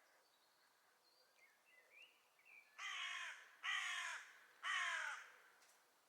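A crow cawing three times, harsh calls a little under a second apart, preceded by faint songbird chirps.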